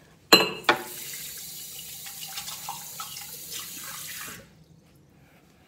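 Two sharp knocks, then a bathroom tap running steadily into a ceramic washbasin with a mug held under the stream, shut off about four and a half seconds in.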